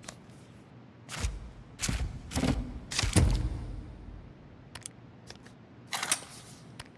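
Handling sounds of small scale models moved and twisted by hand. A run of four thumps and swishes comes in the first half, the loudest a little after three seconds, then a few sharp clicks and snaps near the end.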